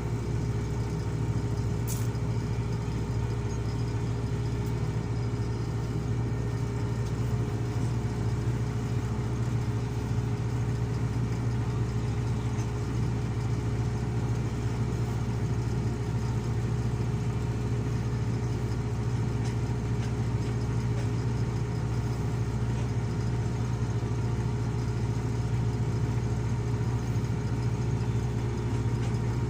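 A heavy vehicle engine running steadily at constant speed, an even low hum that does not change in pitch.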